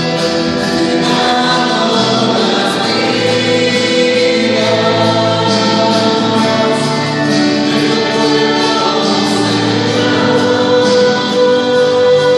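Christian worship song sung by a choir, with long held notes.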